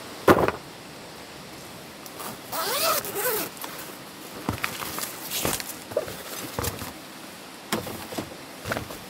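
Zipper on a padded camouflage soft storage case being pulled open around its edge, with a thump near the start as the case is set down on gravel. Rustling and handling noises follow as the lid is flipped open.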